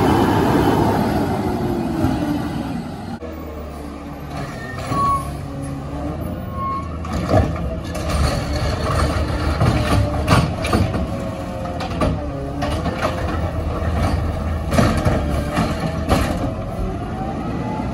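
CNG Peterbilt 520 garbage trucks with McNeilus ZR side-loader bodies: first an engine whose pitch falls as it moves off, then, after an abrupt change about three seconds in, a run of clanks and knocks with whines that rise and fall and two short beeps.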